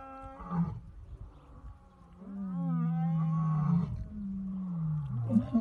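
An animal's drawn-out vocal calls: a short call, then a wavering one, then a long low call that slides down in pitch near the end.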